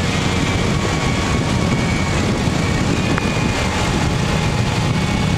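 Harley-Davidson V-twin motorcycle engine running steadily at cruising speed, with a constant rush of wind and road noise.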